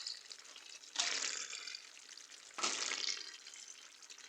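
Two short hissing bursts about a second and a half apart from the pot of pasta in sauce as grated cheese is added, each starting sharply and fading away.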